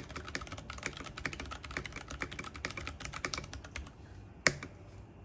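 IQUNIX F97 mechanical keyboard being typed on in a quick, steady run of keystrokes. The typing stops a little before the end, followed by one single louder keystroke.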